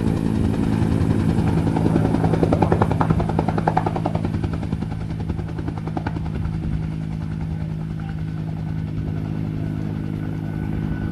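Helicopter engine and rotor running steadily: a constant low hum with a fast, even beat, easing off slightly about halfway through.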